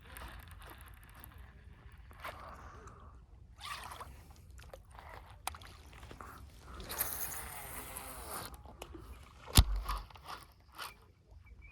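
Fishing-tackle handling noise while casting and retrieving a big bait: irregular scraping and rustling, a hissing stretch about seven seconds in, and one sharp thump nearer the end.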